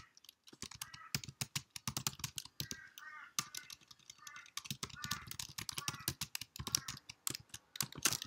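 Typing on a computer keyboard: a steady run of quick key clicks, with a faint voice murmuring between them.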